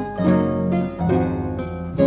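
Classical guitar and Paraguayan harp playing a melody together: plucked notes over held bass notes.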